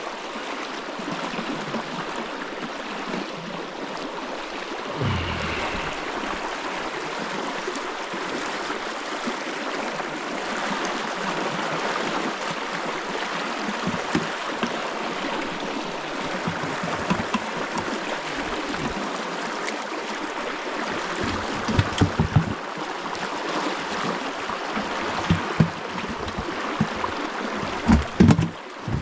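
River water flowing steadily, an even rushing hiss. A few short low bumps come in the second half.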